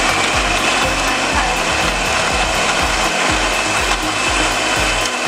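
Indian mixer grinder (mixie) running at full speed, grinding soaked dates, figs, raisins and almonds into a paste: a steady motor whine over a coarse, even grinding noise.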